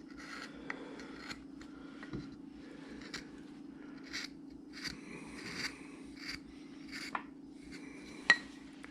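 Number 3 shallow carving gouge slicing wood in short, irregular cuts, a scrape or snick about once or twice a second, with one sharper click near the end. A steady low hum runs underneath.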